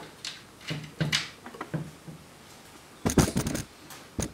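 Hands working at a bicycle's rear axle while fitting the non-turn washers: soft handling noises, then a quick run of sharp metallic clicks and knocks about three seconds in, and one more click near the end.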